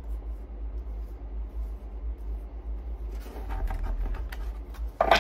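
Tarot cards being slid and gathered on a wooden table, with a steady low hum underneath. The rustling starts about three seconds in and ends in a single sharp click of the cards near the end.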